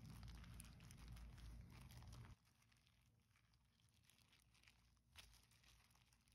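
Faint crinkling of a plastic food-prep glove and soft squishing and rustling as a hand rubs flour into butter and kneads maamoul dough in a glass bowl. It drops sharply quieter a little over two seconds in, leaving only scattered light rustles and ticks.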